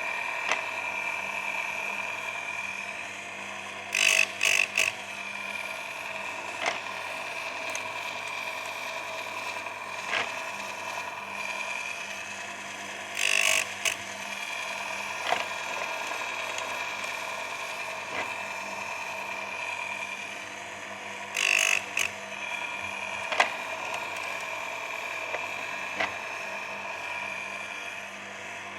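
Electric chainsaw sharpener's grinding-wheel motor running with a steady whine. About every eight or nine seconds it is broken by a short cluster of louder, harsher grinding bursts as the wheel is brought down onto a chain tooth.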